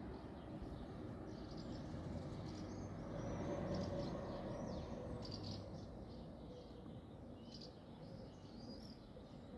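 Small birds chirping: short, scattered calls over a steady low background rumble that swells briefly in the middle.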